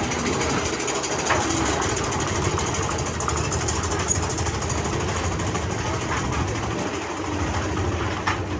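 Big Thunder Mountain Railroad's mine-train roller coaster running along its steel track, a steady rattling rumble with occasional sharp clacks.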